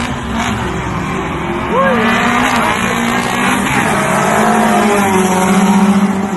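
Street-race cars, a 2.4 MIVEC and a nitrous-equipped 1.8, revving hard and accelerating away at the launch of a drag race. They get louder about two seconds in and are loudest near the end.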